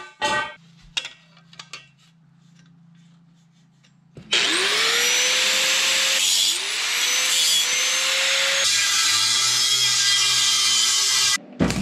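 A few clanks of steel tubing handled on a concrete floor, then an angle grinder with a cut-off disc spins up twice with a rising whine. From about two-thirds of the way in, the disc bites into the steel and the whine drops a little in pitch under load as it cuts, stopping abruptly near the end.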